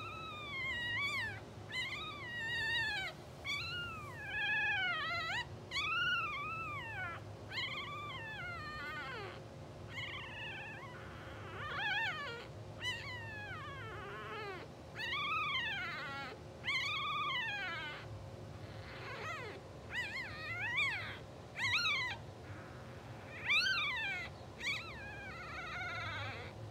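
Newborn English bulldog puppies, about two hours old, squealing: a string of short, high cries that each rise and fall in pitch, about one a second.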